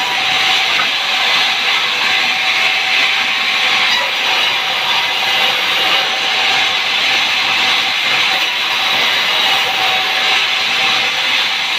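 Sawmill saw cutting through timber: a steady, loud hissing whine with no breaks.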